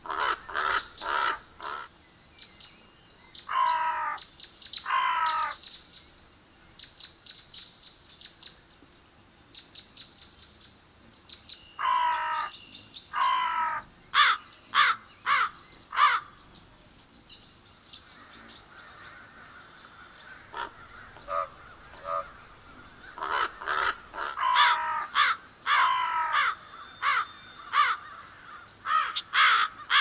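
Crows cawing: runs of harsh caws, with longer drawn-out calls about four seconds in and again about twelve seconds in. Several birds call over one another in a dense run near the end.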